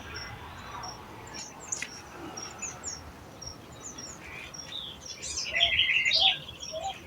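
Several wild birds chirping and calling, with a short high note repeated evenly throughout and a louder trilling song about five seconds in; from then a short low call repeats about every half second.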